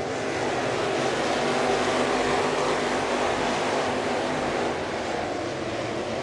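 Dirt-track race car engines running at speed, a dense mechanical noise that swells over the first couple of seconds and eases off a little near the end, as cars pass.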